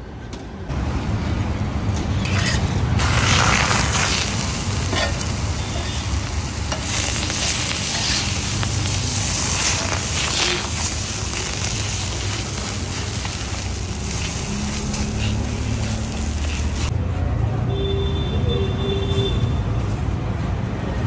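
Food sizzling on a hot tawa griddle, with scraping and stirring strokes, over a steady low rumble of street traffic. The sizzling stops about 17 seconds in.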